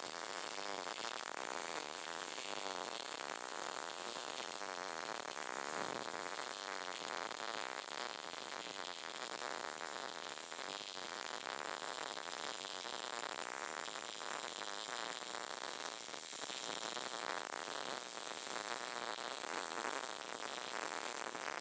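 Short-circuit MIG welding arc crackling steadily, a continuous dense run of fine crackles.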